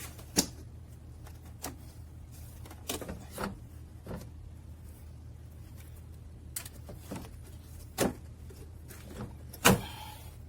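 Scattered clicks and knocks of tools and parts being handled during car repair work, about nine in all, with the loudest near the end, over a steady low hum.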